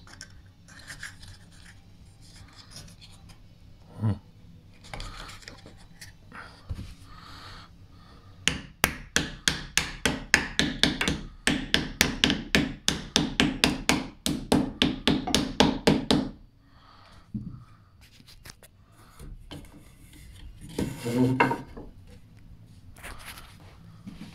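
Claw hammer driving in a small pine filler piece between spindle tops under a handrail, pinning it in place. After some scraping and a knock, a fast, even run of sharp taps, about five a second, comes about eight seconds in and lasts about eight seconds.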